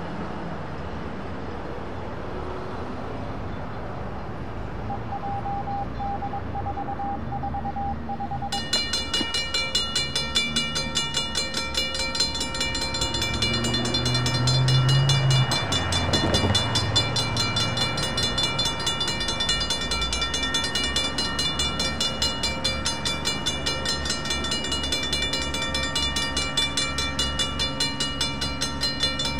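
Railroad crossing signal bell starts suddenly about eight seconds in and rings on in fast, even strikes while the flashing lights run and the gates lower, with road traffic going by underneath. A louder low rumble passes about halfway through.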